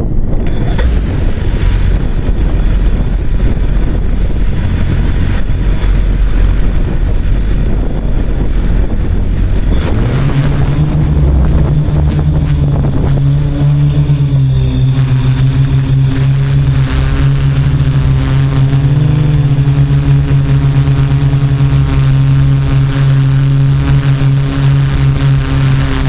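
Quadcopter drone motors and propellers picked up by the onboard camera. For the first ten seconds there is only a low, windy rumble. Then a steady, loud buzzing hum at a fixed pitch comes in as the drone is airborne and holds steady.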